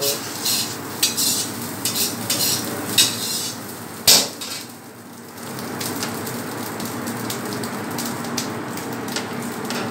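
Kitchen clatter of metal utensils and pans, clinking and scraping in short bursts, with one loud knock about four seconds in. After that comes a steadier, quieter background noise with a low hum.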